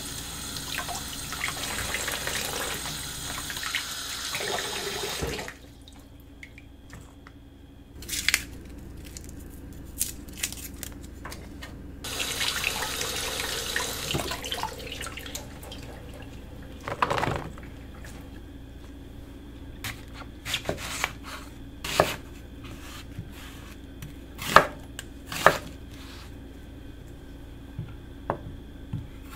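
Kitchen tap running into a sink as produce is rinsed by hand under the stream, in two stretches: the first five seconds, then again for a few seconds from about twelve seconds in. In between and afterwards, scattered knocks and clunks of produce and utensils being handled on the counter.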